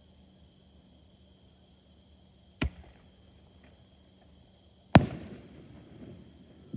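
Aerial firework shells bursting: a sharp bang about two and a half seconds in, then a louder one near five seconds that rumbles and echoes away, and a faint third pop at the very end.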